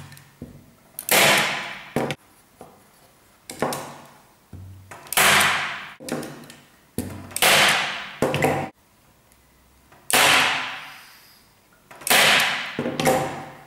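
Hand-operated steel staple gun driving staples through linen into a wooden stretcher frame: about nine sharp snaps, irregularly spaced one to two seconds apart, each ringing briefly in the room.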